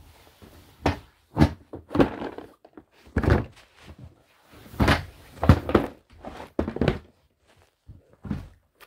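Board game boxes being pulled out and knocked together, a string of irregular thuds and knocks.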